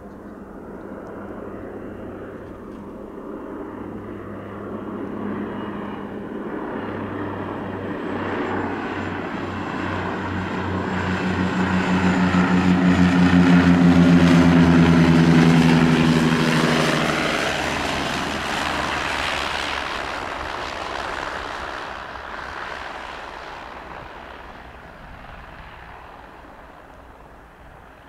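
De Havilland Canada DHC-6-300 Twin Otter's two PT6A turboprops and propellers on approach. The propeller drone grows louder, is loudest about halfway through, drops a little in pitch as the aircraft passes, and then fades as it lands.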